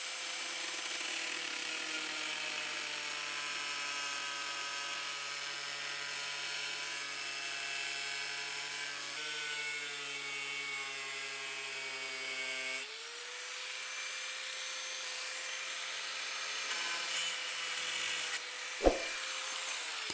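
Small corded angle grinder with a cutting disc whining steadily as it cuts a socket hole through the steel side panel of a 1982 VW T25 van. Its pitch dips slightly about nine seconds in. There is a sharp knock near the end, and then the whine falls away as the grinder winds down.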